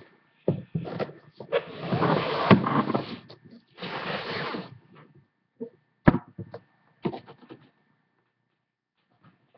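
Rubbing and rustling noise close to the microphone for several seconds, then a few sharp knocks and taps about six seconds in: handling and bumping noise from someone moving right by the webcam.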